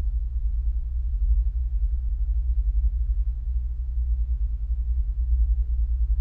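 A steady low rumble with an unsteady, fluttering level and nothing above it.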